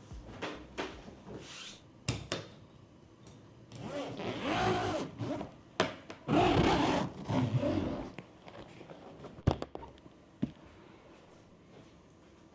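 Close handling noises: rubbing and scraping, with a few sharp clicks and two longer scraping passages about midway.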